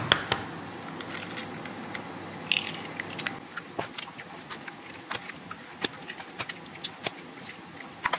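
Eggs being cracked one after another on a stainless steel mixing bowl: a quick, irregular run of sharp cracks and taps as the shells break.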